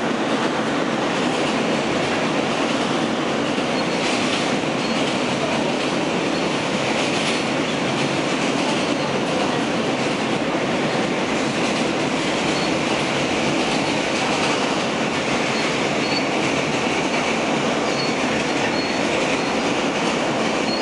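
R160A-1 subway car running along elevated track, heard from inside the car: a steady rumble of wheels on rail.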